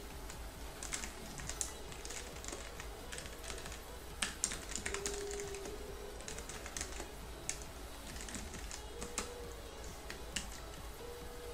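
Irregular clicks of someone typing on a computer keyboard, some sharper than others, over faint background music.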